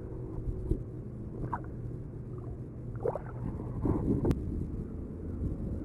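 Kayak sitting on the water: a steady low rumble with faint water sounds against the hull, broken by a few brief knocks, the sharpest a click about four seconds in.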